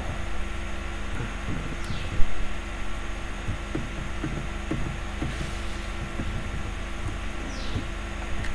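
Steady low hum and hiss of the room and microphone, with faint scattered knocks and one louder knock about two seconds in.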